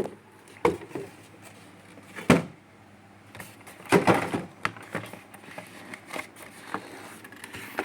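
Handling noises from unpacking a headset box: a few sharp knocks, the loudest about two seconds in, then a longer rustle about four seconds in and lighter taps and clicks.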